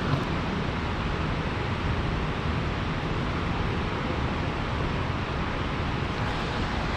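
Steady rush of churning water below a dam whose turbine is running hard.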